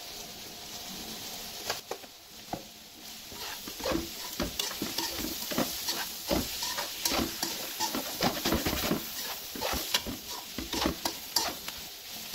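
A metal spoon scraping and stirring fried bitter gourd, onions and tomatoes around an aluminium wok, with irregular scrapes and knocks from about two seconds in over a steady sizzle of the frying.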